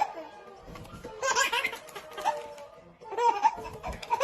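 A person laughing in two bursts, the first about a second in and the second starting just past three seconds.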